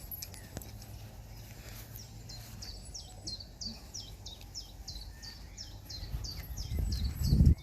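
A songbird singing a long, even run of short falling notes, about four a second. Near the end a loud low rumble builds and cuts off suddenly.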